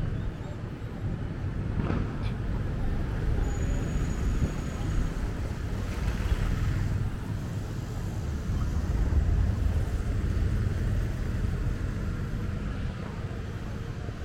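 Street traffic ambience: a steady low rumble of passing vehicles that swells for a few seconds after the middle, with a short sharp knock about two seconds in.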